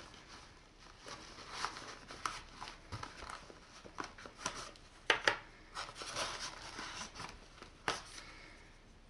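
Fabric of a small drone carrying bag rustling and rubbing as hands work spare drone propellers out of a tight pocket, with a few light clicks and knocks, the sharpest about five seconds in and another near the end.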